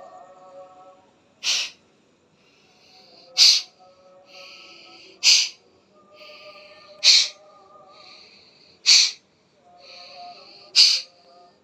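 A person sneezing forcefully six times at an even pace, about one every two seconds, with a softer rushing breath drawn in between each. Faint background music runs underneath.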